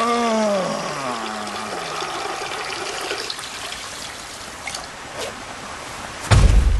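Steady stream of liquid pouring and splashing: a cartoon urine stream falling as a waterfall. It opens with two falling voice-like cries, and a loud low thud comes near the end.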